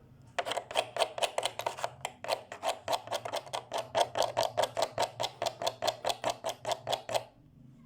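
Rapid back-and-forth rubbing strokes, about five a second, as the dried epoxy-and-sponge patch in the wood is smoothed down by hand to level its high spots. The strokes start about half a second in and stop shortly before the end.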